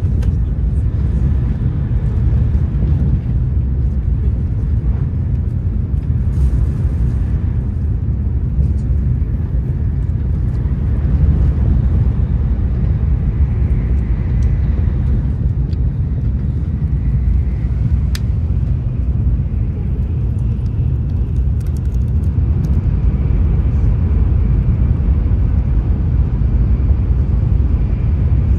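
Steady low rumble of a Shinkansen bullet train running, heard inside the passenger cabin.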